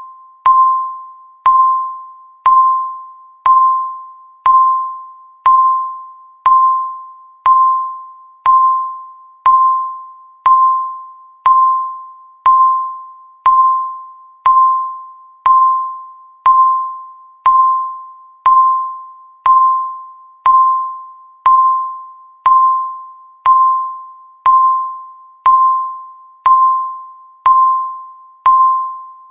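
Countdown timer's tick sound: a short, ringing, bell-like tick about once a second, each fading away quickly, in a steady beat.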